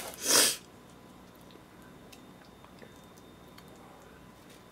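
A man eating pizza: a short, loud, breathy puff about half a second in, then faint chewing and small mouth sounds.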